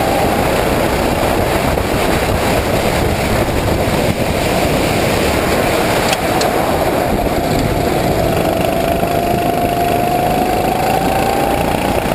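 Sodi RT8 rental kart engine running hard at speed, heard onboard. Its pitch eases down about two-thirds of the way through, then climbs again as the kart picks up speed near the end.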